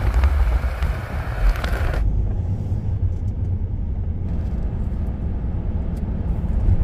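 Camper van driving on the road: a steady low rumble of engine and road noise, with a rushing hiss over the first two seconds that then drops away.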